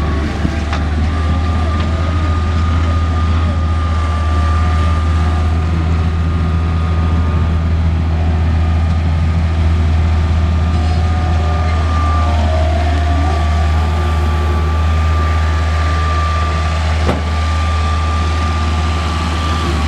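Bobcat 743 skid steer's engine running steadily at a constant speed, with a steady high whine over the low drone. A brief click comes near the end.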